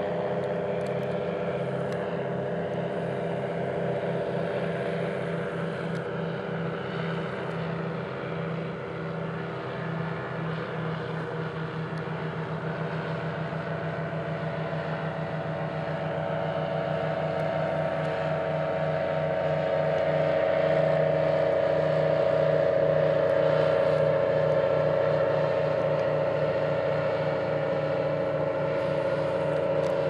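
Ultralight aircraft's engine and propeller droning steadily with a pulsing beat, growing louder about two-thirds of the way through, then easing a little.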